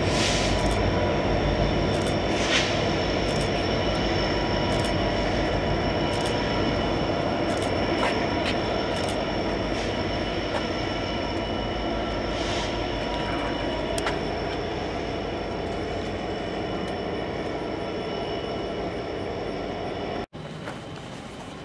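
Norfolk Southern diesel locomotive running as it moves away into a rail tunnel: a steady, dense rumble that slowly fades, with scattered sharp clicks and clanks.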